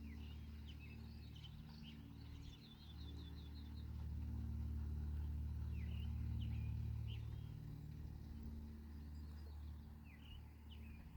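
Small birds chirping, with a quick trill about three seconds in and more chirps near the end, over a steady low rumble.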